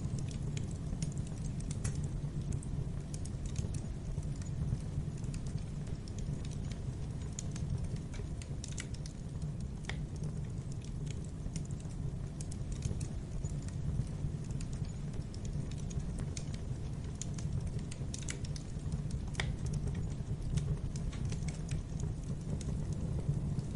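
Wood fire crackling in a fireplace: irregular sharp pops and ticks over a steady low rumble of the flames.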